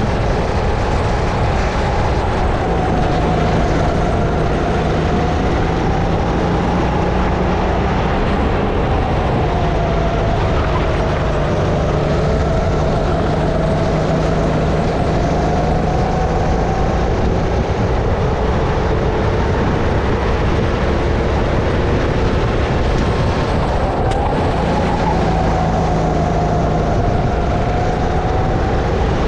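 Single-cylinder 270cc four-stroke engine of a Sodi RX-8 kart running under load on track, its pitch rising and falling as the driver accelerates and lifts through the corners, with steady wind rush.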